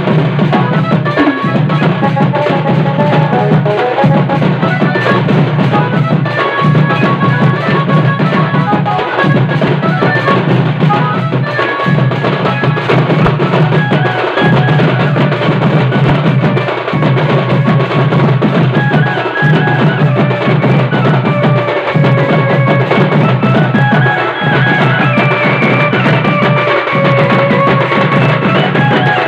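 Band party drumming: a set of barrel drums on stands and many hand-held flat drums beaten loudly together in a fast, dense rhythm that repeats in cycles of about two and a half seconds, with a melody line over the drums.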